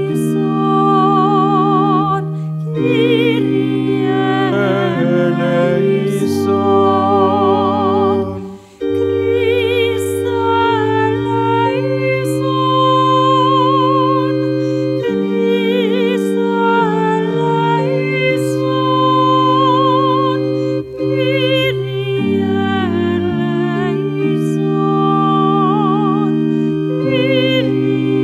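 Slow sacred music: an organ holding sustained chords under a solo singer with a wide vibrato, with a brief pause between phrases about nine seconds in.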